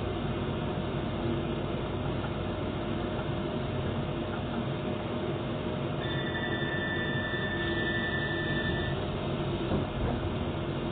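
Docklands Light Railway train heard from inside, a steady running hum and rumble as it draws into a station platform and stops. About six seconds in, a steady high-pitched tone sounds for about three seconds.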